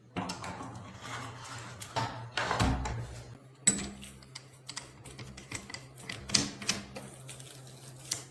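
Irregular taps, knocks and clicks of hand-tool work on the hammer, a few louder knocks among them, over a steady low hum.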